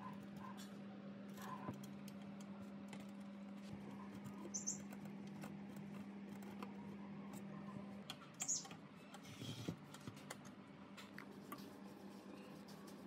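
A long hex key turning small screws while a portable gas stove's burner and igniter are refitted: faint metal clicks and taps, with two brief high squeaks, about five and eight and a half seconds in. A steady low hum under it stops about eight seconds in.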